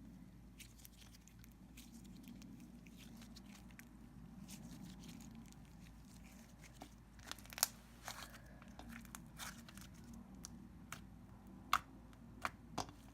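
Slime being squished and handled, giving faint scattered clicks and pops, with a few sharper pops about halfway through and near the end.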